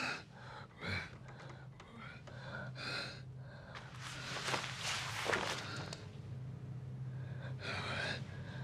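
Several separate breaths and gasps, then about four seconds in a rasping, peeling stretch that fits a face mask being pulled off the skin. A low steady hum runs under the second half.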